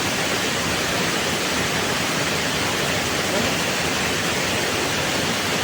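Steady rushing noise of a waterfall's falling water, even and unbroken.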